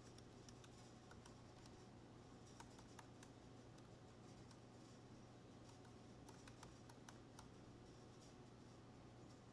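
Faint computer keyboard typing: scattered single keystrokes, some in quick runs, over a low steady hum.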